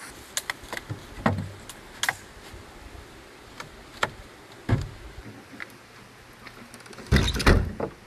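Scattered clicks and knocks of dishes and utensils being handled during a meal, with a louder clatter near the end, over the steady rush of a mountain stream.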